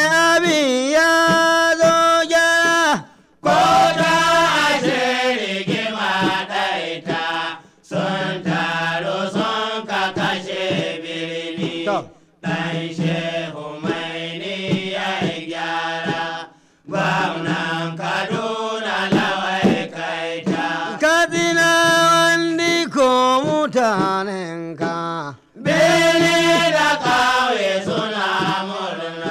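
Hausa praise song: a singing voice holds long, ornamented phrases over a steady low accompaniment. The phrases last about four to five seconds, with short breaks between them.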